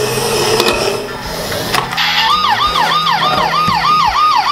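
Robocar Poli remote-control toy police car sounding its electronic siren through its small speaker: a fast rising-and-falling wail, about three cycles a second, starting about two seconds in. Before it there is a steady hum.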